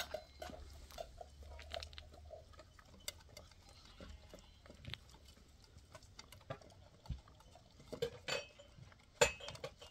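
Scattered, irregular light clicks and knocks, with a sharper knock about nine seconds in.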